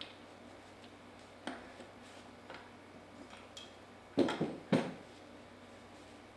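Comet P40 diaphragm pump's metal housing being handled and wiped out with a rag: a few faint clicks, then two short knocks about half a second apart around four seconds in as the housing is turned over.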